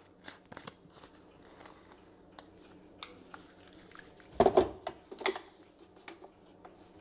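A plastic single-serve blender cup being handled: the blade lid is screwed on with small clicks and taps, then the cup is turned over and fitted onto the motor base, with a few louder plastic knocks about four and a half seconds in and again a second later.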